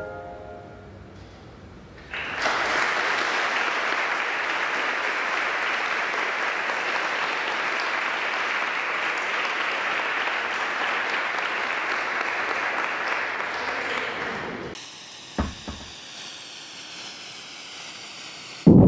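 Audience applauding for about twelve seconds, starting about two seconds in after the last notes of music fade, and cutting off abruptly. A faint sweeping sound with a single thump follows near the end.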